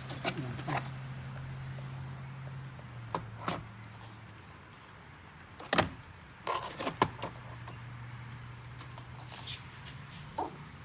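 Handling sounds in a car: a few sharp clicks and knocks, irregularly spaced, over a steady low hum that fades about four seconds in and returns about three seconds later.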